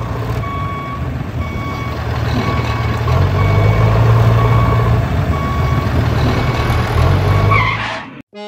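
Heavy truck engine running with a reversing alarm beeping at a steady pace, about one beep every two-thirds of a second. The engine swells a little in the middle, and both cut off shortly before the end.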